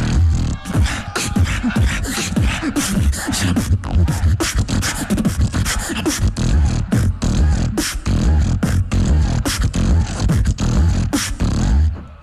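Beatboxing into a handheld microphone during a battle round: deep bass kicks and sharp snares in a fast, dense rhythm, breaking off near the end.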